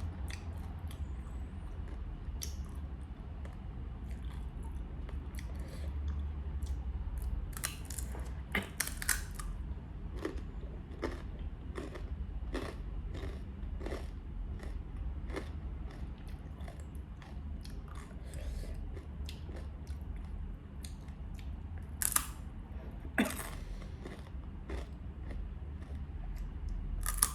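A person chewing and biting crisp, syrupy jalebi close to the microphone: irregular crunches and wet mouth clicks, a few sharper ones around a third of the way in and near the end.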